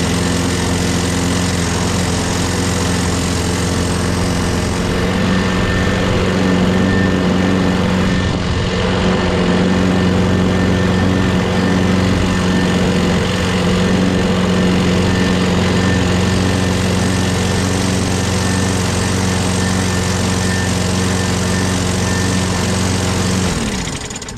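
Craftsman mower's 6.5 hp Briggs & Stratton Quantum single-cylinder engine running steadily after a carburetor clean. Near the end it is shut off and winds down.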